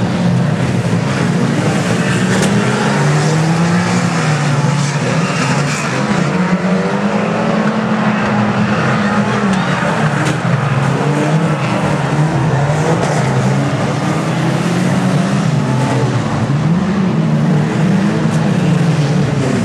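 A pack of banger racing cars' engines running and revving around the track, several engine notes rising and falling together as the cars lap. A few sharp knocks stand out now and then.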